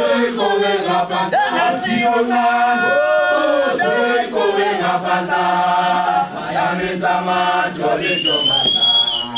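A choir chanting: many voices singing in harmony over a steady low held note, with a high sliding note near the end.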